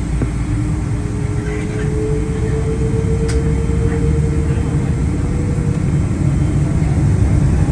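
Boeing 777-200ER's Rolls-Royce Trent 892 jet engines running up for the takeoff roll, heard from inside the cabin over the wing: a steady low rumble growing slowly louder, with a faint whine that rises slightly in pitch and fades out about six seconds in.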